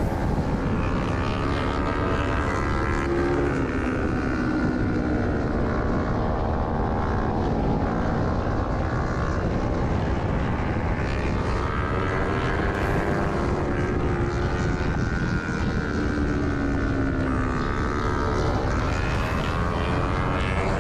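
Kawasaki Ninja 300 parallel-twin engine under race load, its revs climbing and dropping again and again through gear changes, over a heavy rumble of wind on the onboard camera.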